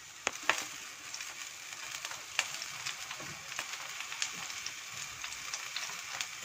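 Marinated chicken and red onion skewers sizzling in a hot oven: a steady hiss with scattered sharp crackling pops.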